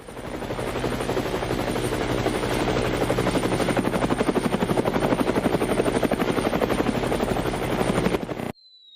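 Helicopter sound effect: rapid rotor chopping that fades in over about a second, holds steady, and cuts off suddenly about eight and a half seconds in.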